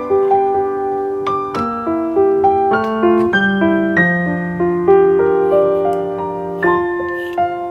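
Background music: a gentle piano or keyboard melody of held notes.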